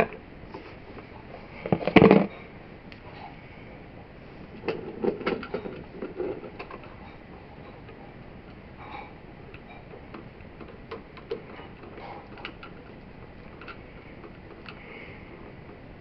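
Small clicks and rustles of hands straightening and handling electrical wires at an open wall switch box, with a louder single knock about two seconds in.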